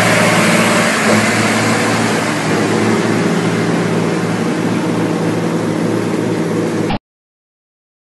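Heavy truck's diesel engine running steadily as it works through mud, with a loud rushing noise over it. The sound cuts off abruptly about seven seconds in.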